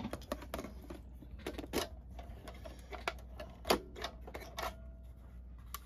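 Irregular clicks and light knocks of hard plastic as a G scale model caboose's body and roof are handled and pulled apart.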